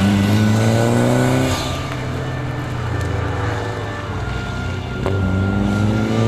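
Mitsubishi Lancer Evolution's turbocharged four-cylinder engine accelerating hard, its pitch climbing for about a second and a half. It then drops back, runs lower and steadier for a few seconds, and climbs again near the end.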